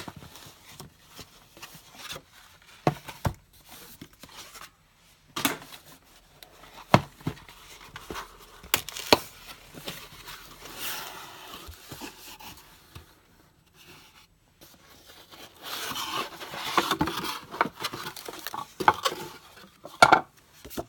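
A beauty subscription box being opened and unpacked by hand: its packaging crinkles and rustles, with scattered sharp knocks and clacks as small items are handled. A longer spell of rustling comes about sixteen seconds in, and a loud cluster of clacks just before the end.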